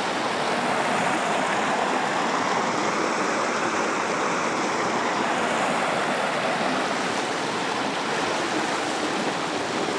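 River water rushing steadily over a shallow, rocky rapid.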